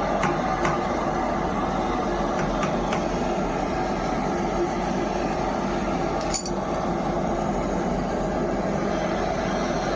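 A machine running steadily, with a few light metallic clinks in the first three seconds and one sharp click about six seconds in.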